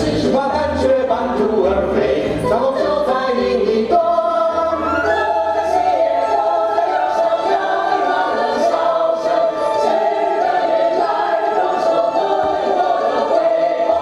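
A musical theatre cast singing together in chorus. About four seconds in, the voices settle onto a long held high note.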